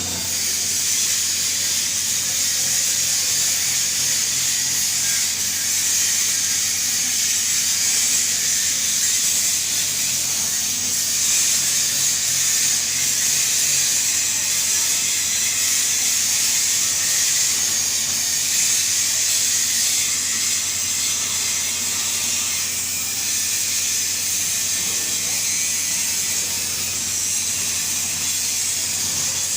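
TIG (GTAW) welding arc burning steadily: a continuous high hiss over a low electrical hum.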